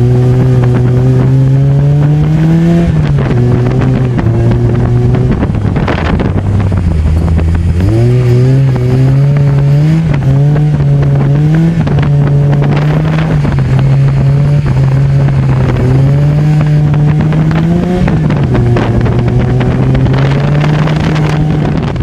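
Peugeot 106 autocross car's engine, heard from inside the stripped cabin, revving up and easing off repeatedly, its pitch climbing and dropping several times. The throttle is being feathered to keep the wheels from spinning uselessly in deep mud on a flooded track. Wind rushing in through the front mesh buffets the microphone.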